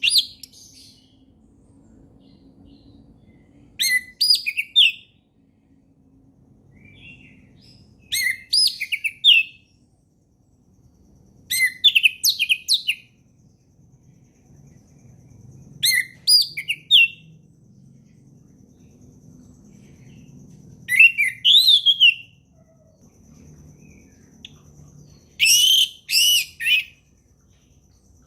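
Orange-headed thrush singing: six short phrases of quick, rich whistled notes, each about a second long, spaced roughly four seconds apart.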